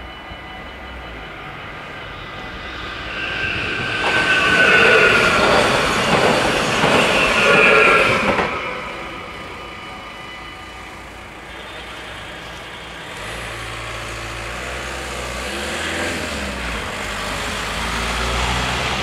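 An NS Stadler FLIRT electric train passes over the level crossing, its wheels rumbling and clattering on the rails for about four seconds, over the steady electronic ringing of the crossing bells. The bells stop about eleven seconds in, leaving the low rumble of a waiting van's engine as the barriers rise.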